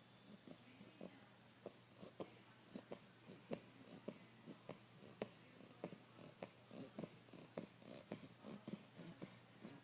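A sleeping puppy snoring softly, with many quick little clicks and snuffles, two or three a second and unevenly spaced.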